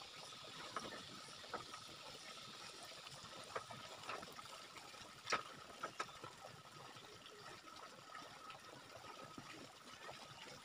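Scattered light knocks and clacks of hollow bamboo poles being handled and set onto a bamboo platform, the sharpest about five seconds in, over a faint steady outdoor background with a thin high steady tone.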